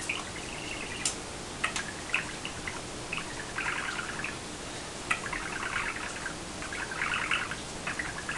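Budgerigar chattering and warbling with its head inside a small hanging bell, in scratchy bursts of about a second each, with a few sharp clicks between them.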